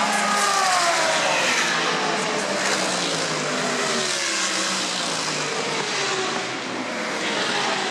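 GT3 race car engines at speed. An Aston Martin Vantage GT3 passes with its engine note falling, then more race cars run along the straight with notes that fall and, near the end, rise again.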